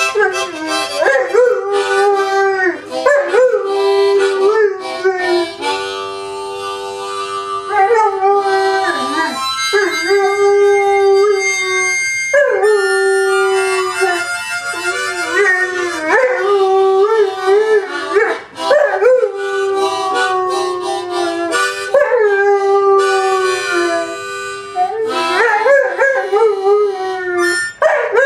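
A dog howling along to a harmonica, long wavering howls over held harmonica notes and chords.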